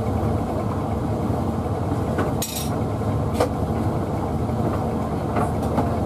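Hoover Visiontech Infinity VTV581NC tumble dryer running on its main drying stage, the drum turning with a steady low rumble as laundry tumbles. A few sharp knocks come through, the loudest about two and a half seconds in.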